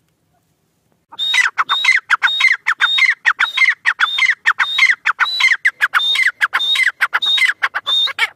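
Grey francolin (teetar) calling: a loud, rapidly repeated ringing phrase, about two a second, each a high note dropping into lower notes. It starts about a second in and stops abruptly near the end.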